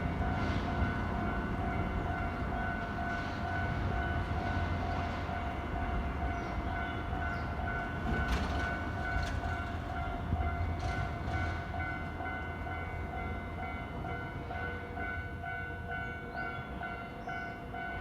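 Japanese level-crossing alarm ringing its steady, repeating electronic ding while a train rumbles past over the crossing. A few sharp clacks from wheels over rail joints come around the middle, and the rumble eases off toward the end.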